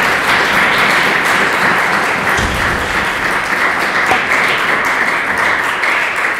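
Audience applauding steadily: dense, even clapping from a room full of people.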